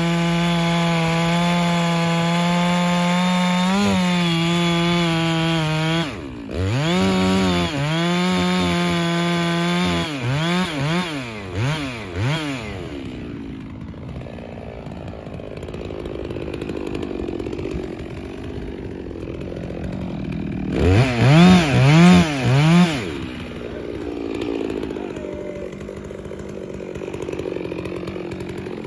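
FarmMac F660 chainsaw, a clone of the Stihl 660 with a two-stroke engine, cutting through a large log at full throttle for about ten seconds with a brief dip partway. It is then blipped a few times and drops to a low idle. About two-thirds of the way through it is revved about four times in quick succession before settling back to idle.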